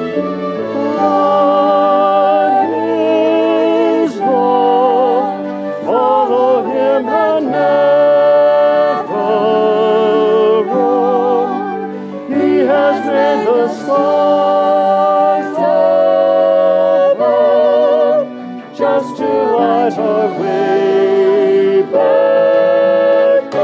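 Two women singing a slow, hymn-like song with wide vibrato on long held notes, over musical accompaniment.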